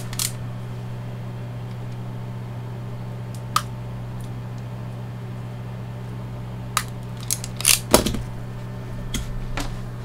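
Sharp clicks and light rattles of a cable and connector being handled at a CB radio's metal chassis: a single click, then a cluster of several about seven to eight seconds in, over a steady low hum.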